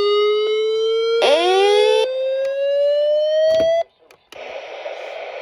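Electronic siren-like alarm tone, buzzy and rising slowly in pitch, with a second sliding tone joining about a second in. It cuts off abruptly near four seconds, and after a click a steady hiss of radio static follows.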